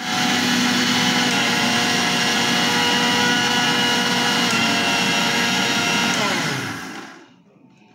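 Electric mixer grinder (mixie) running, grinding dry-roasted rice to a fine powder in its steel dry jar. It starts abruptly, runs steadily with a whine, and is switched off about six seconds in, its pitch falling as the motor spins down.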